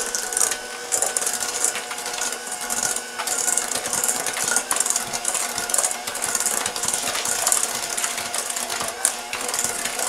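Electric hand mixer running steadily, its beaters whirring through butter, sugar, egg and vanilla in a stainless steel bowl as they are mixed into a batter.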